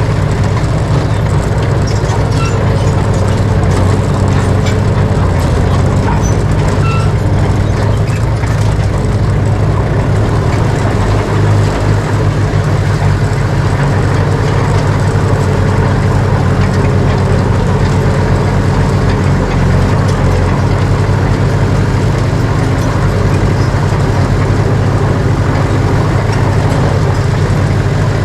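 Heavy diesel engine of earthmoving machinery running steadily under load, a loud, even low rumble.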